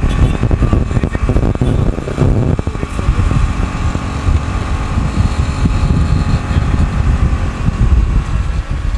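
Tuk-tuk (auto-rickshaw) engine running as it drives along a road, heard from inside the open cabin, with a loud, uneven low rumble.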